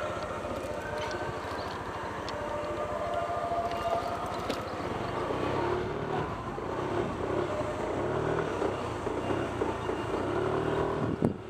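Motorcycle engine running at low speed, its revs rising and falling in the second half.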